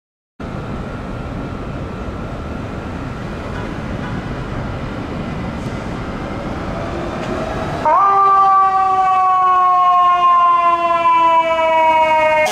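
A fire engine idles under a steady low rumble of street noise. About eight seconds in, its siren starts suddenly, jumps up in pitch, then slowly sinks in pitch while it keeps sounding loudly.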